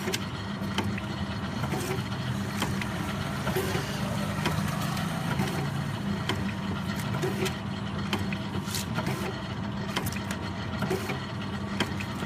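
Automatic liquid sachet packing machine running: a steady mechanical hum with short clicks at uneven intervals.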